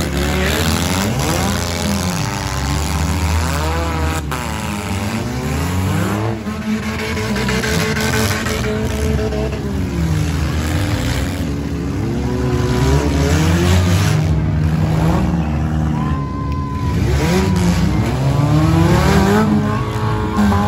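Several four-cylinder demolition derby cars revving hard at once, their engine pitches rising and falling as they push and ram one another, with the odd sharp bang of a hit, one about four seconds in.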